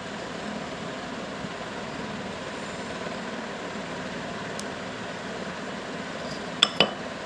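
Electric fan running as a steady whooshing noise, with two sharp clicks close together near the end.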